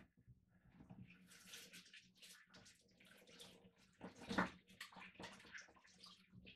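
Faint, irregular splashing and trickling of water, with one louder splash about four seconds in, over a faint steady low hum.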